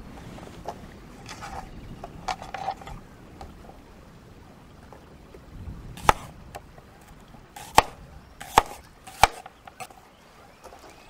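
Knife slicing carrot and onion on a wooden cutting board: light cutting taps in the first few seconds, then four sharp knocks of the blade hitting the board in the second half as the onion is sliced.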